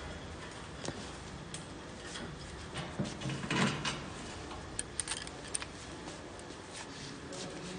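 Clicks and knocks of a metal access door on a jute cutting machine being worked loose and swung open for removal, loudest in a short clatter about three and a half seconds in, with a few sharp metallic ticks about five seconds in.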